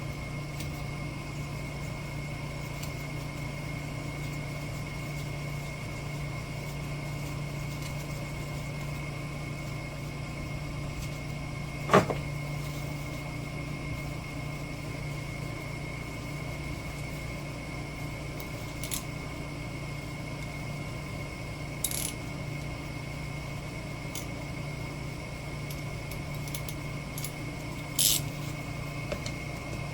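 Steady mechanical hum with a thin high tone running over it. One sharp knock about twelve seconds in is the loudest event, and a few lighter clicks and taps come later.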